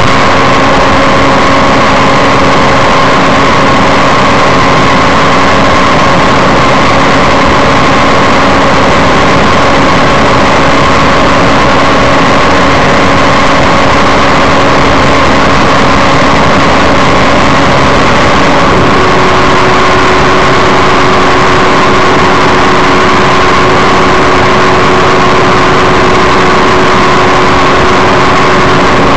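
Microlight trike's engine and propeller running steadily and loud under a dense rush of noise. About 19 seconds in, one of its tones steps up in pitch.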